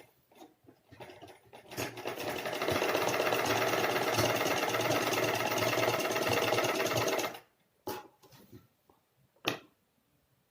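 Sewing machine stitching a fabric strip onto a kurti neckline. It speeds up over about a second, runs steadily for about five seconds and stops abruptly, then there are a couple of sharp clicks.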